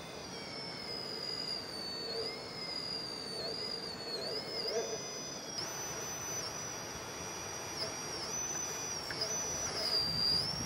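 High-pitched electric whine from an RC rock crawler's motor and gear drive, its pitch stepping up and down as the throttle is eased on and off while the truck crawls over rocks.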